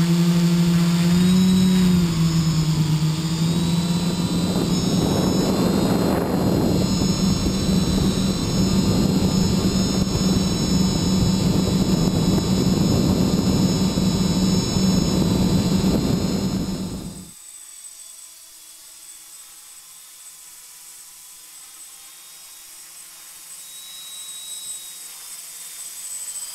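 Multicopter's brushless motors (Robbe Roxxy 2827-34) driving Graupner 11x5 propellers: a loud steady hum with higher tones, heard close up from the camera on board. About 17 seconds in it cuts abruptly to a much fainter hum from the copter flying at a distance, which grows louder near the end as it passes close.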